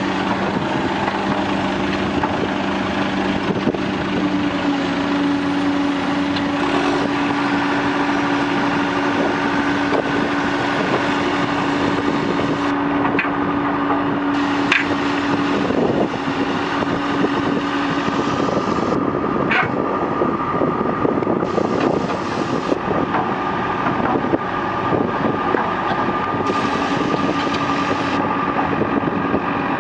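Heavy construction machinery running, a steady diesel engine drone whose character changes abruptly every few seconds, with a few sharp metallic clanks.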